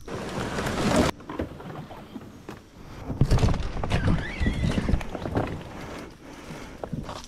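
Branches and leaves rustling, with bumping and scraping, as a plastic kayak is pushed through brush to the water's edge. A short wavering squeak comes about four seconds in.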